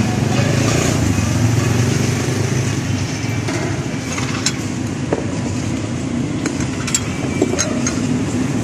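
Steady low rumble of street traffic and engines, with a few short sharp clicks in the second half.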